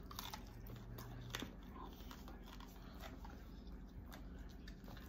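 A person chewing a mouthful of food with faint, scattered wet mouth clicks and smacks, as in eating ASMR.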